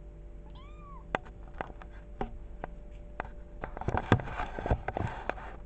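A tiny kitten gives one short, high meow about half a second in. A run of sharp clicks and knocks follows, growing busier and louder in the second half.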